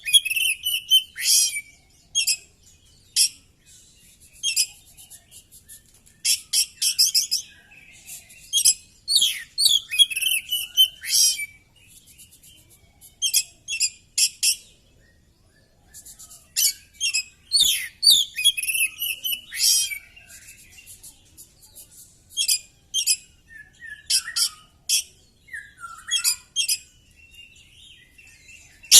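Oriental magpie-robin (kacer) singing a varied song in bursts of rapid, high chattering phrases and trills, with short pauses between them.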